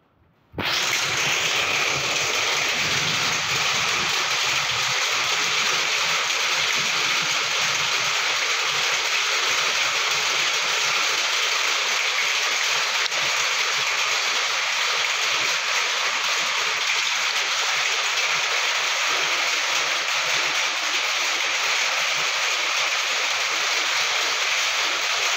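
Heavy rain falling, a steady, unbroken hiss that starts abruptly about half a second in.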